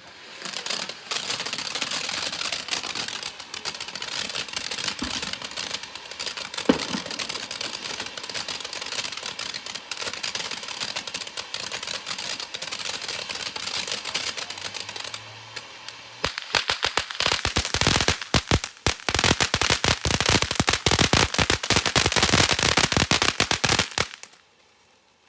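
Fantasyland fountain firework spraying with a steady hiss, then breaking into a dense, rapid crackle for its last several seconds before it cuts off near the end.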